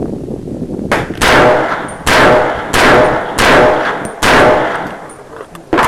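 Five loud gunshots fired at a steady pace, about three-quarters of a second apart, each trailing off in a long echo. A sharper, quieter shot comes near the end.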